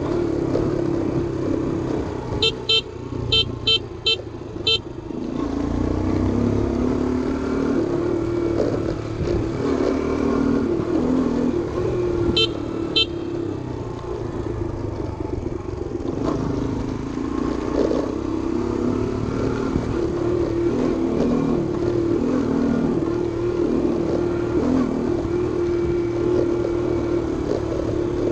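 Small motorbike engine running steadily as it rides along, with low wind and road rumble. A horn beeps about five short times a few seconds in, then twice more about halfway through.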